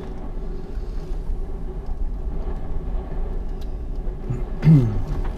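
Steady low wind rumble with a faint steady hum, heard from inside a glider cockpit. Near the end comes a short voice sound that drops in pitch.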